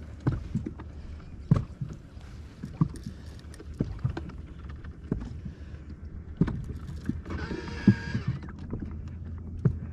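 Small waves slapping against a fishing boat's hull in quick irregular knocks over a steady low hum. A brief high whine with several tones sounds about seven seconds in and lasts about a second.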